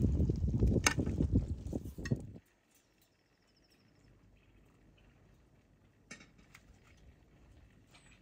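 A ladle serving thick pinto bean stew from a pot onto a ceramic plate, with a sharp clink about a second in, for about two seconds. After that, faint outdoor background with a few light clicks.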